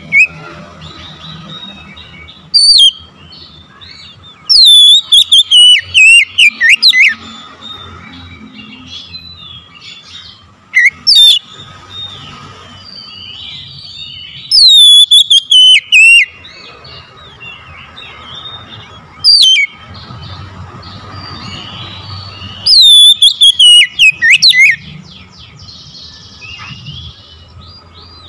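Oriental magpie-robin (kacer) singing loud whistled phrases that come every few seconds, each a sharp note sliding down in pitch followed by a quick run of notes.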